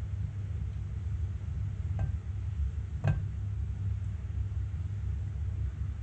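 A steady low rumble, with two light knocks about two and three seconds in as the spatula stirring cream strikes the side of the saucepan.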